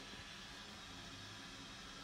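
Faint steady hiss with a weak low hum: workshop room tone, with no distinct tool or machine sound.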